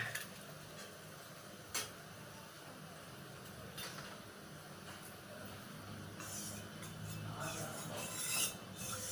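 A few light clinks of kitchen utensils, then a metal spatula stirring and scraping in a metal kadhai of oil on the stove, growing louder in the last few seconds.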